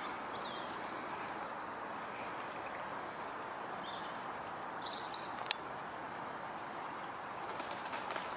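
Steady outdoor background noise with a few brief bird chirps, a single sharp click about five and a half seconds in, and a short run of crackles near the end.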